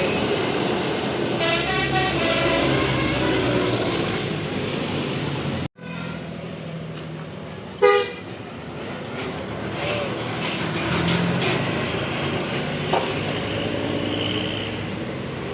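Bus's telolet basuri musical air horn playing a melody of quickly changing notes for about five seconds, cut off abruptly. About two seconds later comes one short horn blast, then road traffic noise.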